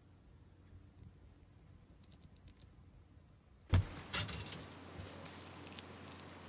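Plastic model-kit parts being handled: faint light clicks at first, then a sudden knock a little past halfway through, followed by the light clatter of a clear plastic parts sprue being picked up and moved.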